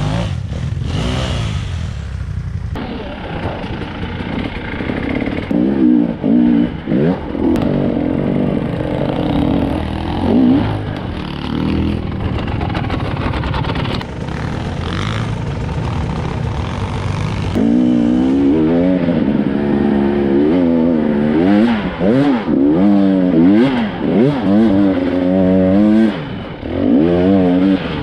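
Off-road dirt bike engine revving up and down over and over while riding a rough forest trail, with sudden jumps in sound a few times.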